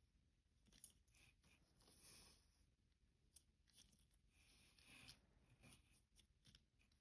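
Faint, irregular scraping and crunching of sand as toy construction trucks are pushed through it, with a few small clicks from the toys.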